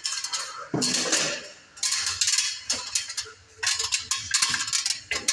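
Metal objects clinking and rattling in about five short bursts, mostly high-pitched, with sharp clicks.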